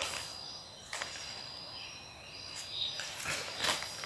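Paper slips rustling as they are handled and unfolded, a few short crinkles, with crickets chirring faintly and steadily behind.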